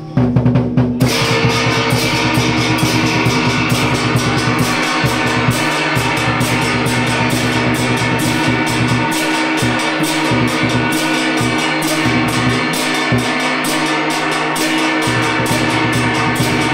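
A Vietnamese trống chiêng ensemble playing loud and fast: a large barrel drum beaten in rapid strokes together with several hand-held flat gongs struck with mallets, their ringing tones held under the dense beats. It starts suddenly at the opening.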